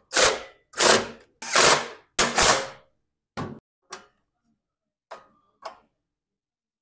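Cordless impact driver running in four short bursts in the first three seconds, driving home the bolts of a snowblower's engine shroud. After it come a few light clicks and taps as the plastic cap on top of the engine is handled.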